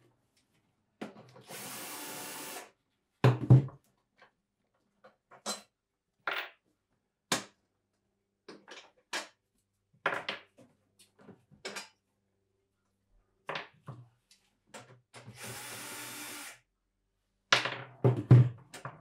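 Cordless drill/driver running twice in short steady bursts of about a second and a half, backing out screws, amid scattered clicks and knocks of screws and parts being handled inside a pinball cabinet. The loudest are sharp clunks a few seconds in and again near the end.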